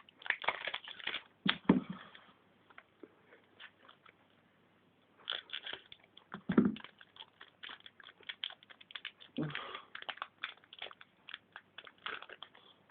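Crinkling, crackling and rustling of a foil trading-card booster pack being opened, with cards being handled. The rustling comes in irregular bursts.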